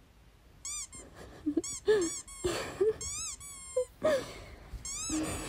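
A squeaky toy squeezed again and again, giving high rise-and-fall squeaks in quick bursts. One longer squeak falls away a little after three and a half seconds in. A woman's short playful vocal sounds come in between the squeaks.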